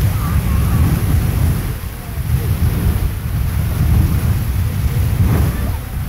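Beehive Geyser erupting: a steady rush of its water and steam column jetting from the cone, mixed with heavy wind buffeting on the microphone.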